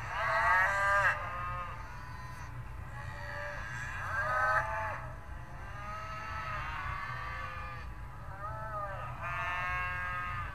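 Cattle mooing: a series of drawn-out moos, some overlapping, the loudest right at the start and again about four and a half seconds in. A steady low rumble runs underneath.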